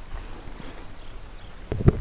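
Faint nature ambience, then near the end a loud rough scraping stroke with clicks: an earpick rubbing in the ear of a binaural dummy-head microphone, the close 'gorigori' ear-cleaning sound.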